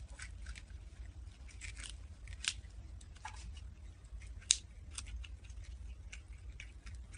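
Prairie dogs chewing crunchy food: a string of irregular crisp crunches and clicks, with sharper ones about two and a half and four and a half seconds in, over a low steady hum.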